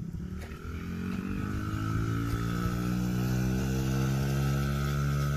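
Yamaha 50cc kids' dirt bike engine under throttle, its pitch and loudness rising over the first two seconds as the bike gathers speed, then running steadily.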